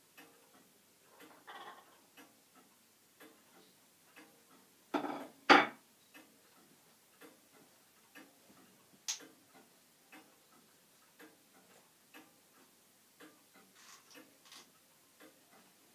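A clock ticking steadily, about two ticks a second, with a loud double clatter about five seconds in.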